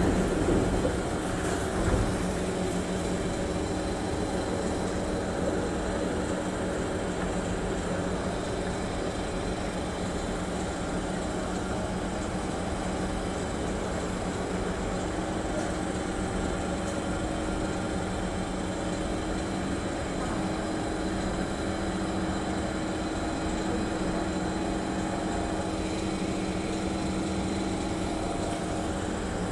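Steady hum of a standing MRT train with its doors open, mostly its air-conditioning and onboard equipment, with a couple of faint steady tones in it. In the first two seconds the sliding doors open, with a knock about two seconds in.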